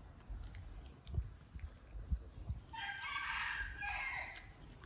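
A rooster crowing once, one call of about a second and a half starting a little past the middle, with a few faint low knocks underneath.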